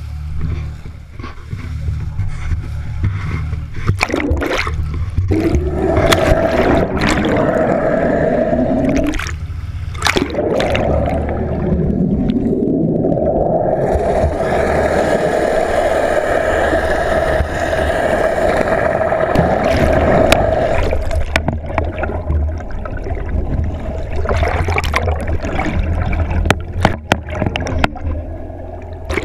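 Water rushing and gurgling around an action camera towed underwater on a trolling line, over a steady low drone. A humming tone comes in about six seconds in and fades out after about fifteen seconds.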